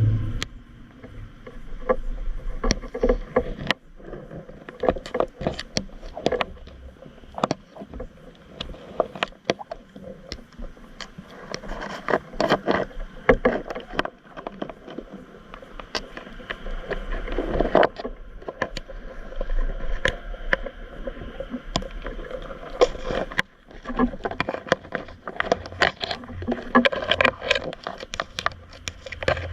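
Irregular clicks and knocks mixed with water sloshing and splashing.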